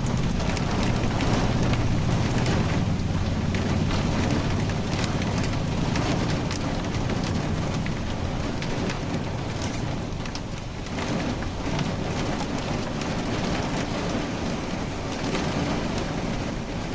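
Heavy storm rain pouring down steadily, with many small drop impacts, and a low rumble of thunder strongest in the first half.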